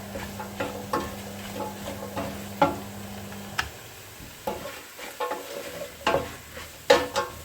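A cooking utensil stirring minced turkey, onion, tomatoes and carrots in a pan, with irregular knocks against the pan over a light sizzle. A steady low hum underneath cuts off about halfway through.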